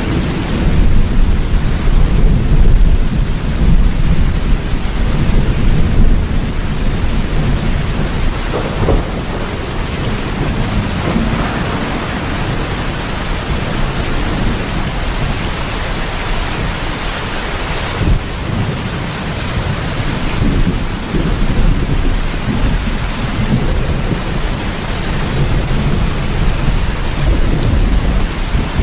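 Steady rain falling, with a low rolling rumble of thunder underneath that swells loudest for several seconds near the start.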